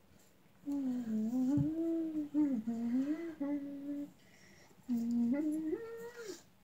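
A person humming a tune with closed lips, in two phrases separated by a pause of about a second.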